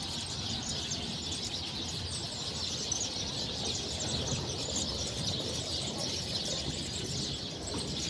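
A roosting flock of small songbirds, saffron finches among them, chirping and twittering together in a tree in a dense, continuous high-pitched chorus; many birds call at once with no pause, the typical evening gathering before settling to roost.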